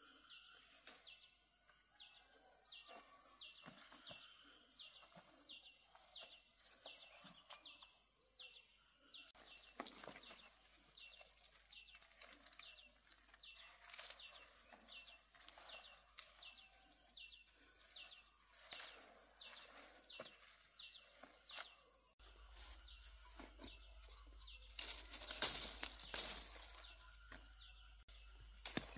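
Faint outdoor ambience: a steady high-pitched drone, with a short call repeating about twice a second that stops about twenty seconds in. Scattered clicks and rustles sound throughout, loudest as a burst of crackles near the end.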